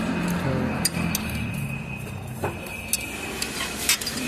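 Metal tools clinking against engine parts several times, over a steady workshop background hum with a thin high whine.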